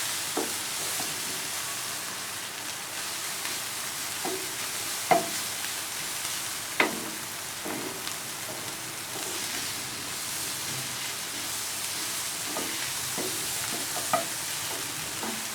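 Egg scramble with onion and tomato sizzling in oil in a frying pan as it is stirred, a steady hiss. A few sharp knocks cut through it, the loudest about five and seven seconds in.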